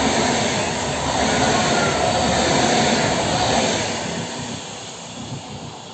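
PKP Intercity ED250 Pendolino electric trainset passing at high speed: a loud rush of wheels on rail and air that fades away from about three and a half seconds in as the last car goes by.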